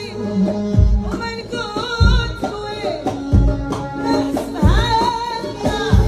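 A woman singing through a microphone in wavering, ornamented vocal lines, over amplified keyboard and percussion. A deep drum beat lands about every second and a quarter.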